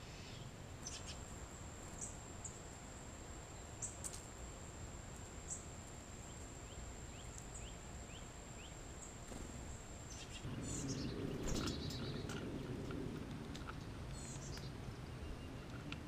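Backyard ambience: a steady high insect drone with scattered short bird chirps and calls. About ten seconds in the insect tone stops and a louder low rumble comes in, with a quick run of bird calls over it.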